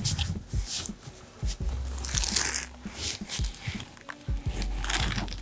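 Chiropractic adjustments on the table: several short sharp pops and knocks from thrusts on the body, with rustling of clothing and table cover, over quiet background music.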